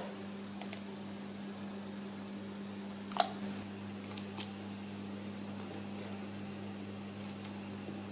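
Strawberries dropped by hand into a glass bowl of water: a few short splashes and knocks against the glass, the loudest about three seconds in, over a steady low hum.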